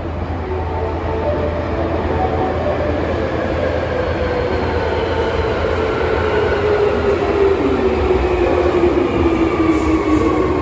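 Subway train pulling into the station. Its motor whine falls slowly in pitch as it slows, over a steady low rumble of wheels on the track.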